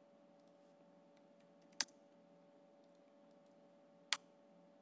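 Faint computer keyboard keystrokes as a ping command is typed, with two sharper key clicks about two seconds in and near the end, over a low steady hum.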